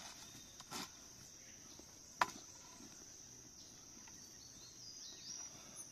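Faint steady high-pitched chirring of insects in the background, with a single sharp click about two seconds in.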